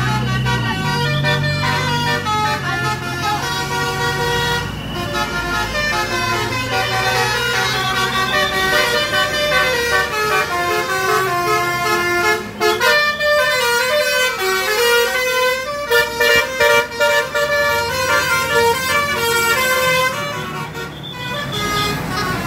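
Multi-tone 'telolet' bus horn playing a melody: a string of overlapping horn notes stepping up and down in pitch, with a short break about halfway through. A bus engine runs low underneath near the start.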